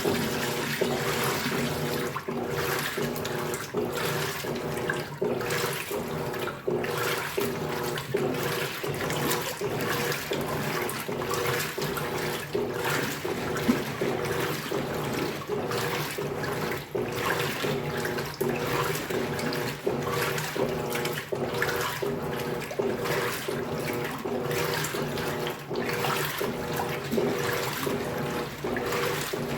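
Electrolux Turbo Economia 15 kg top-load washing machine running its wash cycle: water and clothes churning and sloshing in the tub over a steady motor hum.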